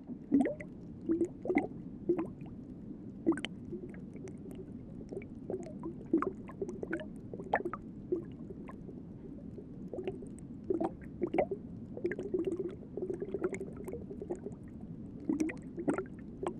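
Underwater ambience: a steady low wash of water with irregular bubbling pops and gurgles.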